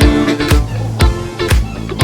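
Background music with a steady dance beat, a kick drum about twice a second under pitched instrumental parts.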